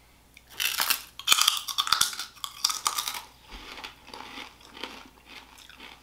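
Crunchy bites and chewing of crisp, puffed microwaved pork rinds. Loud crackling crunches for the first few seconds, then quieter chewing.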